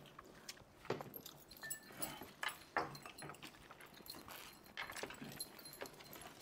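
Faint eating noises from several people eating biryani by hand: scattered chewing, sipping and gulping of water, and soft irregular taps and clinks of glasses and hands.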